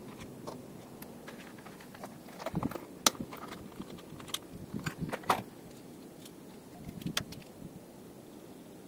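Irregular clicks and knocks of handling, a few sharper ones about three and five seconds in, over a low steady background.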